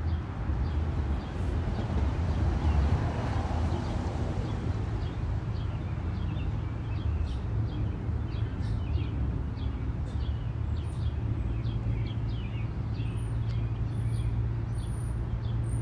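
Outdoor park ambience: a steady low traffic rumble, swelling about two to four seconds in as a vehicle passes, with small birds chirping.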